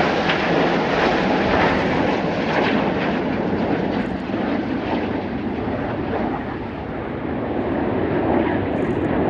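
Jet noise from BAE Hawk T1 jets flying a formation display: a steady rushing noise that eases slightly past halfway and swells again near the end.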